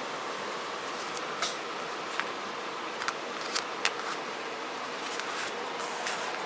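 A handful of light clicks and taps from a wristwatch on a nylon strap with steel rings and buckle being picked up and handled, over a steady hiss.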